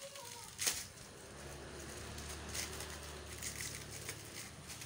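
Clear plastic wrapping crinkling and crackling as it is pulled off a metal detector part by hand, with one louder snap under a second in.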